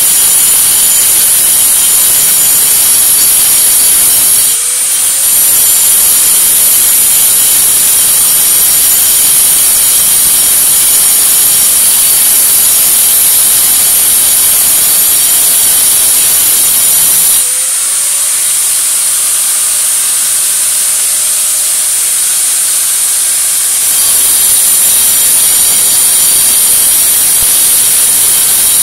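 An electric handheld power tool runs under load, cutting or grinding, with a loud steady high whine. It eases off briefly about four and a half seconds in and picks up again. Its whine drops away from about seventeen seconds in and comes back near twenty-four seconds.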